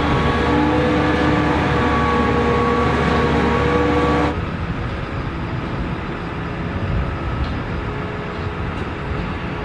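An engine running steadily with a steady whine over it; about four seconds in, the sound drops suddenly to a quieter, steady machine hum.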